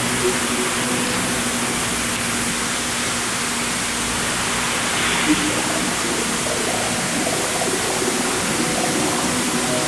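Steady rush of water spraying and falling as a dome-shaped fountain, a pump-fed curtain of droplets thrown from a central nozzle.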